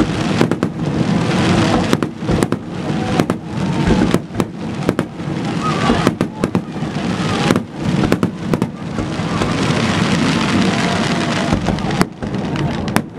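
Aerial fireworks shells bursting in quick succession: repeated sharp bangs over a dense, continuous crackling of glittering stars, which thins out briefly near the end before more bangs.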